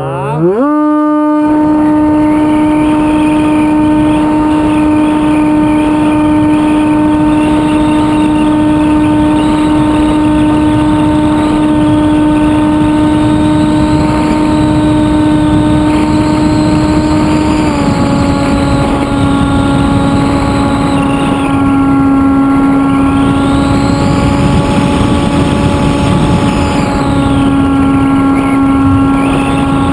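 Electric motor and propeller of a Hawk Sky foam RC plane whining steadily, heard from a camera on the plane with wind rushing over the microphone. The pitch climbs quickly in the first second as the motor spins up, then holds, dropping slightly about eighteen seconds in.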